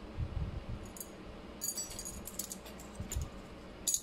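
Light metallic clinks and tinkling from the small parts of an opened voltmeter gauge being handled: its metal case, glass and rings. The clinks come in short clusters, with a few soft handling bumps between them.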